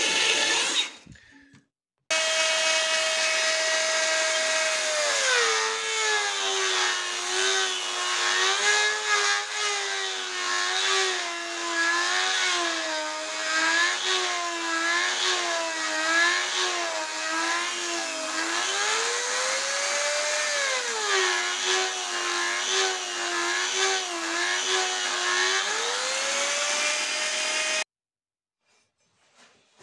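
High-speed hand-held rotary tool grinding steel, working at a hole in a cleaver blank: a steady whine whose pitch drops and wavers as the bit is pressed in. It climbs back up once when eased off about two-thirds through, sags again under load, and cuts off abruptly near the end.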